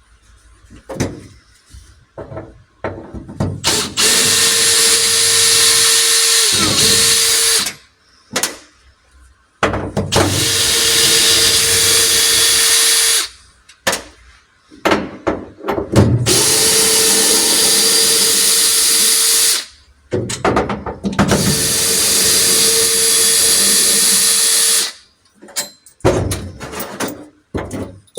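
Electric arc welder seam welding steel mounting plates to a car's steel body: four runs of steady hiss, each about four seconds long with a steady hum under it. Short pauses between the runs hold light knocks and clicks.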